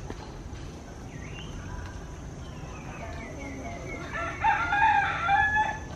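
A rooster crowing once, a long call of about a second and a half in the second half.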